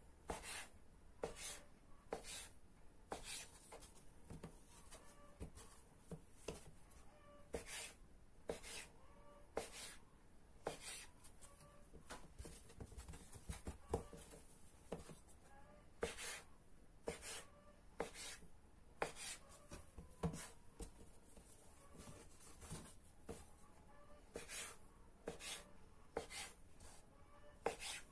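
Kitchen knife cutting soft rolled dough into diamond-shaped pieces, its blade tapping on a wooden cutting board in sharp clicks about once a second, unevenly spaced.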